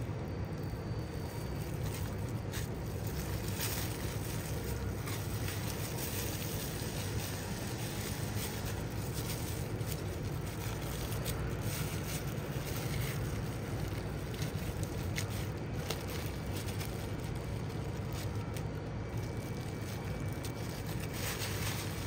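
Plastic bag crinkling and rustling every few seconds as cloth-wrapped bait balls are handled inside it, over a steady low rumble.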